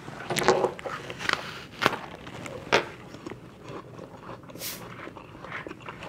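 Crisp crunching of a Granny Smith apple being bitten and chewed, with about four sharp crunches in the first three seconds and then quieter chewing.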